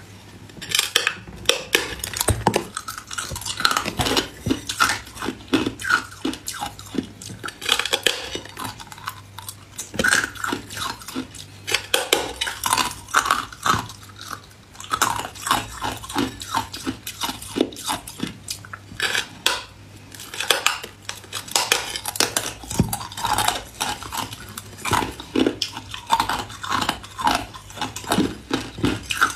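Hard ice being bitten and chewed: a steady run of sharp cracks and crunches as pieces snap off a thin slab of ice and break up between the teeth.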